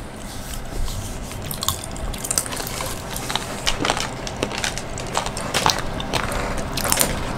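Cola-flavoured popping candy crackling: a string of small, irregular snaps and clicks.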